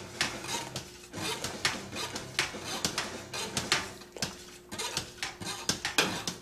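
A metal utensil stirring malt extract into wort in a stainless steel brew pot, scraping and clinking against the bottom and sides in quick, irregular strokes. The stirring keeps the thick extract from scorching on the bottom of the pot.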